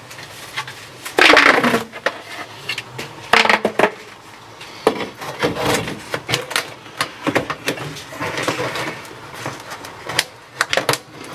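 A hose being pushed and worked onto a vent fitting: irregular scraping, rustling and clicks, with louder scrapes about a second in and about three and a half seconds in.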